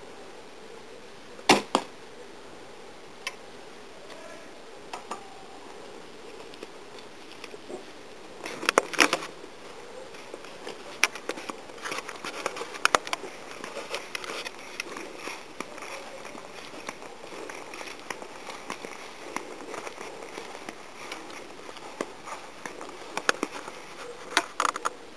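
A wooden recurve hunting bow is shot about a second and a half in: a single loud, sharp snap of the released string, with a second crack a moment after it. Scattered handling clicks and rustling follow.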